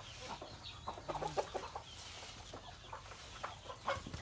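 A flock of backyard chickens clucking as they feed, with short scattered calls.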